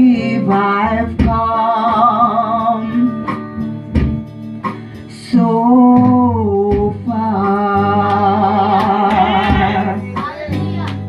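A woman singing a slow gospel song into a microphone, holding long wavering notes, over guitar accompaniment.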